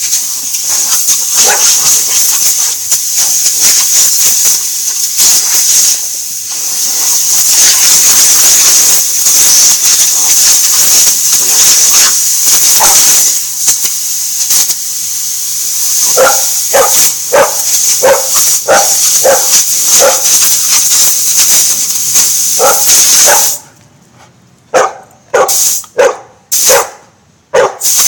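Compressed air hissing loudly and steadily from an air compressor hose, cutting off suddenly about four-fifths of the way through. From a little past halfway a dog barks in short, repeated barks and yips, about two a second, carrying on after the air stops.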